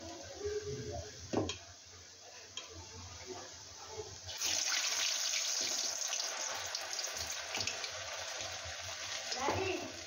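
Urad dal vadas deep-frying in hot oil in a kadai. About four seconds in, the sizzle jumps suddenly to a loud, steady hiss, as fresh batter meets the oil; before that it is quieter, with the soft handling of wet batter in a steel bowl.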